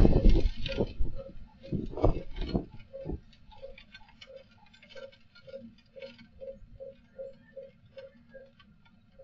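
Strong wind gusting against a CCTV camera's microphone, dying down about three seconds in. A steady run of short ticks, about two or three a second, follows.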